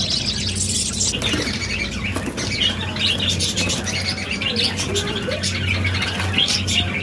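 Budgerigars chirping and chattering, with wings flapping in quick bursts; a steady low hum runs beneath.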